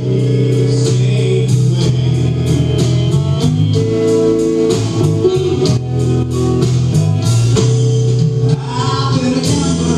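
A live band playing: electric guitar, keyboards and drum kit with singing over a steady beat.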